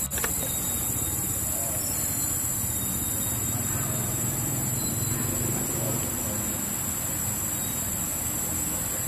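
Steady outdoor ambience: a constant high-pitched insect drone over a low traffic-like rumble, with faint vocal sounds now and then.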